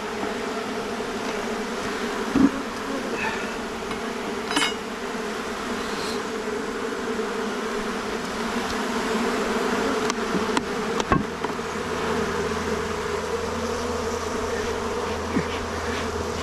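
Honeybees buzzing steadily in a loud cloud around an opened hive, with a few sharp knocks, about two and a half seconds in and again about eleven seconds in.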